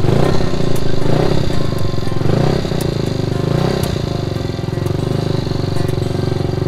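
Honda Super Cub C102's small four-stroke single-cylinder engine running, freshly rebuilt and just started, its speed swelling and dropping back a few times in the first four seconds before settling to a steady run.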